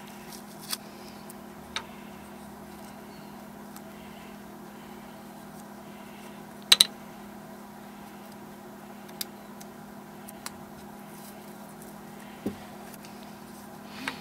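Scattered light clicks and taps of small plywood pieces being handled and set down on a metal band saw table, with a sharper double click about halfway through. Under them runs a steady low hum.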